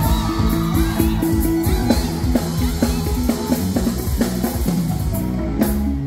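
Live band playing loud amplified pop-rock through a PA, a drum kit keeping a steady beat under sustained bass and instrument notes.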